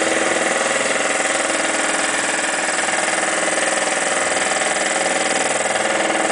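Electric buffing polisher running steadily on a car's paint during final polishing: a loud, even motor whine with no change in pitch.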